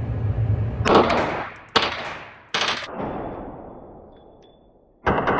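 Gunfire: three loud reports under a second apart, each followed by a long fading echo. Music cuts in suddenly near the end.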